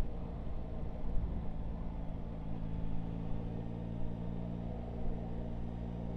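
Yamaha Tracer 9 GT's three-cylinder engine running at a steady speed while cruising, its even engine note under a low haze of road noise.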